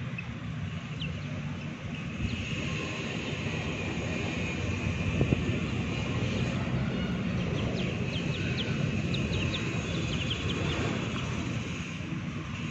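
A steady low rumble, a little louder after about two seconds, with faint short high-pitched bird chirps scattered through the second half. A single sharp tap comes about five seconds in.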